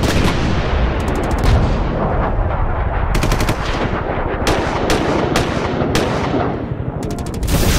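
Machine-gun fire sound effect: loud, rapid fire running in bursts, with clusters of sharp cracks.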